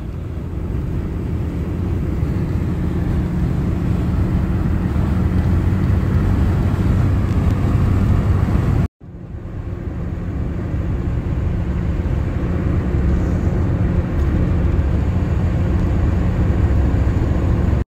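Steady low road and engine noise inside a moving car's cabin. It cuts out briefly about nine seconds in, then builds back up.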